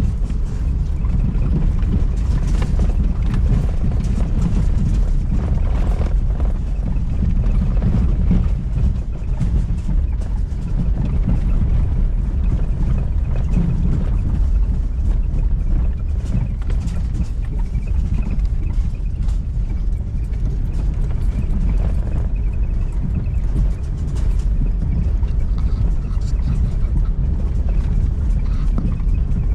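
Vehicle driving, heard from inside: a steady low rumble of engine and road noise with scattered knocks and rattles.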